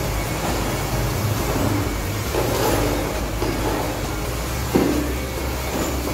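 Corded electric rotary polisher running steadily, its buffing pad working over a car's painted hood, heard as a continuous low machine hum.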